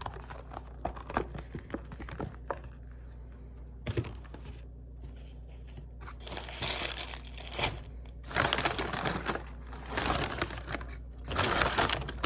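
Paper takeaway food packaging crinkling and crumpling as it is handled: scattered small crackles at first, then several rustling bursts of about a second each in the second half.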